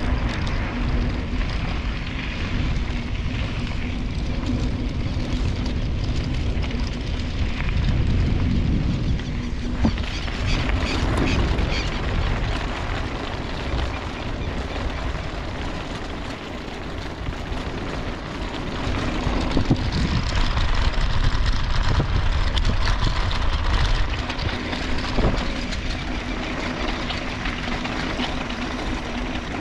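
Wind buffeting the microphone and road noise from riding a bicycle along a country road, with a steady low hum in parts.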